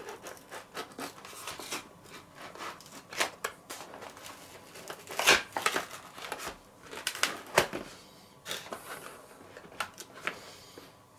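Cardboard packaging being handled: the flaps of a motherboard's black cardboard tray are opened and the board is worked loose, giving an irregular run of rustles, scrapes and sharp clicks, the two loudest snaps about halfway and two-thirds of the way through.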